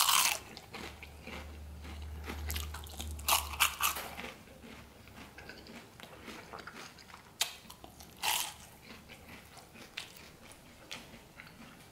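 A crunchy fried awama dough ball, coated in honey, being bitten and chewed close to the microphone. It gives a loud crunch at the first bite, then a few sharper crunches among softer chewing that fade toward the end: the fried shell has stayed crisp under the honey.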